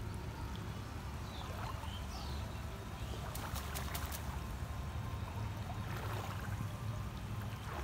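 Water sloshing and dripping as a wet cast net is gathered in and lifted through shallow water, with a cluster of sharp splashes about halfway through. A steady low rumble runs underneath.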